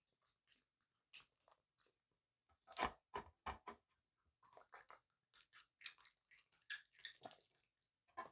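Raccoon chewing grapes: a string of small, irregular chewing clicks, loudest in a brief cluster about three seconds in.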